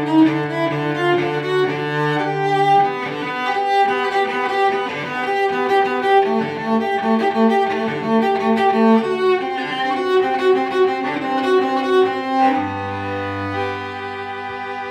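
String music with cello and violin playing a slow line of held notes, closing on a sustained low chord near the end.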